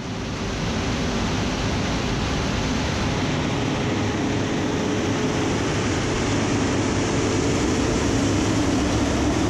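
John Deere 903J feller buncher running steadily as it moves past, its felling head's saw disc spinning, giving a constant mechanical whirr. The sound fades in over the first half second.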